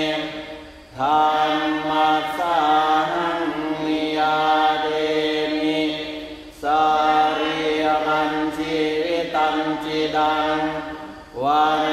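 Thai Buddhist monks and lay followers chanting Pali verses in unison on steady held pitches, pausing briefly for breath about a second in, again after about six and a half seconds, and near the end.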